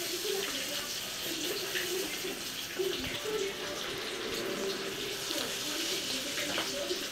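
Chicken kebab pieces deep-frying in hot oil in a steel kadai: a steady sizzling and spluttering, with a brief louder burst about three seconds in.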